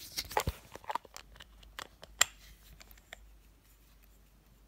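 Small clicks and taps of makeup products and plastic cases being handled, the sharpest about two seconds in, dying away after about two and a half seconds.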